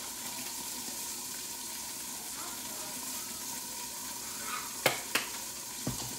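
Chicken pieces frying in oil in a covered pan, a steady sizzle. About five seconds in, two sharp clicks, then a low knock just before the end.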